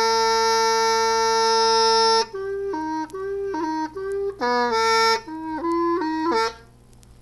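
Music: a solo reedy wind instrument holds one long note, then plays a phrase of short notes stepping up and down, ending about six and a half seconds in.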